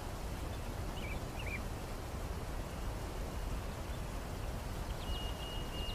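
Steady low background hiss and hum with faint bird calls: two short chirps about a second in, and a thin steady whistle starting near the end.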